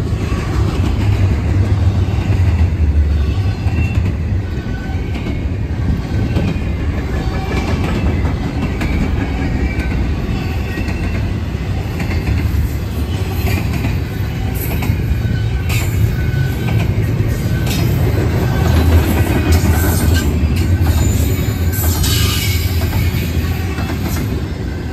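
BNSF double-stack intermodal freight cars rolling past close by: a steady heavy rumble of steel wheels on rail with clickety-clack from the wheels over the rail joints and occasional faint high wheel squeal.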